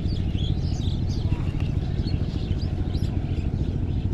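A steady low rumble with a few short, high bird chirps over it.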